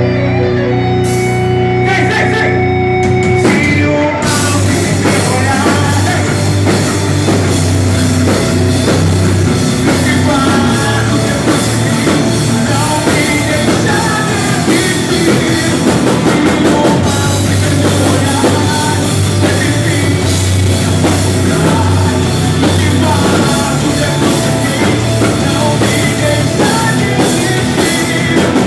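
Rock music played by a full band. It opens with a few seconds of held guitar tones, then drums and the full band come in about four seconds in and play on loud.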